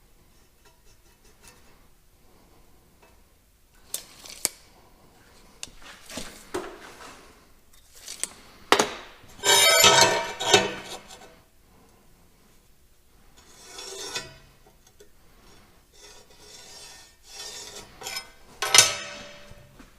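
Irregular metal clinks, taps and scraping as tools and steel stock are handled and marked out, with a dense stretch of scraping about halfway through.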